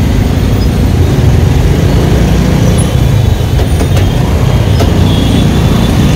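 Steady low rumble from riding a motorbike through heavy traffic, mostly wind buffeting the microphone, mixed with road and engine noise.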